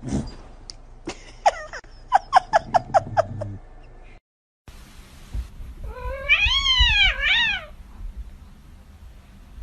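A cat making a quick run of short, chirpy mews, about six a second. After a cut, a cat gives one long, drawn-out meow that rises, falls and rises again.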